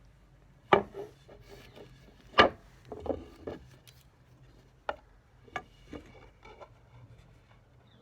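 Hard wooden knocks and clatter from handling the dresser's wooden caster-wheel parts: two loud knocks under two seconds apart, then a scatter of lighter knocks and clicks.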